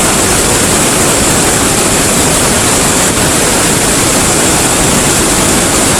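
A big waterfall pouring: a loud, steady, unbroken rush of falling water.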